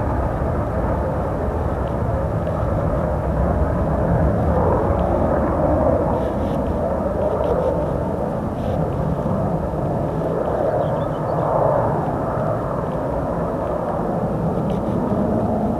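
Jet engine noise from a Tupolev Tu-134A-3's two rear-mounted Soloviev D-30 turbofans: a steady, loud rumble that swells and ebbs slowly.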